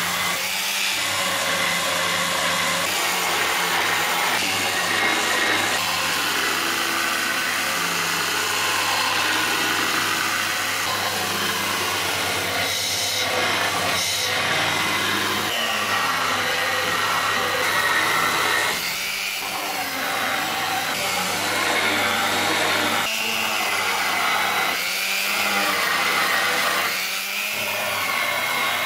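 Handheld electric channel-letter polisher running, its wheel rubbing and grinding along the edges of a stainless steel sign letter. The noise is steady, easing briefly about two-thirds of the way through and again near the end.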